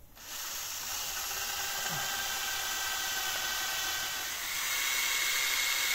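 Cordless drill running, boring a 2 mm hole into a 3D-printed plastic charging-adapter part: a steady motor whine with a hiss of cutting, which rises in pitch and gets louder about four and a half seconds in.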